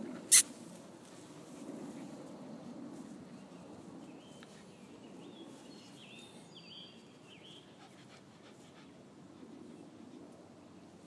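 Rottweiler puppies panting, with a single sharp click about half a second in that is the loudest sound. A few faint high squeaks come around the middle.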